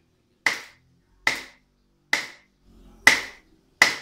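Cleaver chopping pork on a round wooden chopping block, mincing the meat by hand: five sharp chops, a little under a second apart, each with a short ring.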